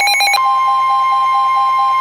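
Emergency Alert System attention signal: a loud, steady two-note alert tone that takes over from a rapidly warbling tone about a third of a second in, ahead of a new warning message.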